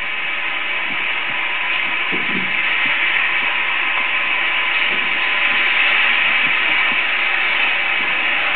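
Steady whirring hiss of a film projector and platter running in a projection booth, with faint steady tones through it. A soft knock about two seconds in.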